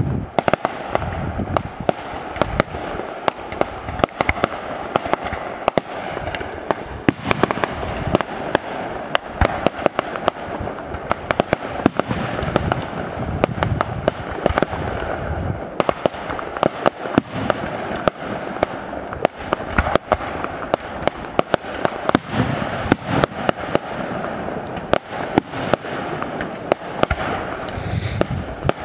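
Fireworks display going off continuously: many sharp cracks and pops, several a second and irregular, over a constant rushing noise.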